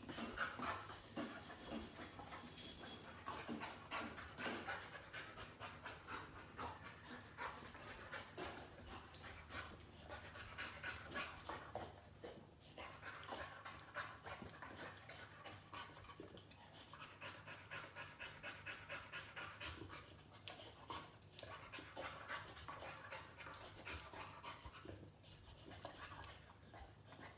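Boxer dog, recovering from knee surgery, panting quickly and evenly, a steady run of breathy pants.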